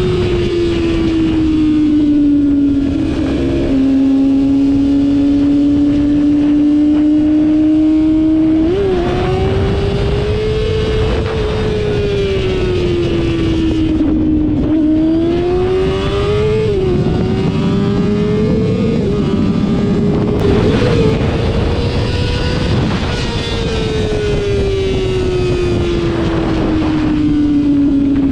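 Yamaha R6 inline-four sportbike engine under way, heard from the rider's position. Its note rises and falls slowly with the throttle over several long swells, with a few short blips in pitch, over a steady rush of wind on the microphone.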